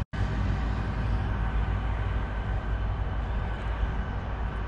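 Steady low rumble of outdoor background noise on the camera microphone, cut off completely for a split second at the start by an edit.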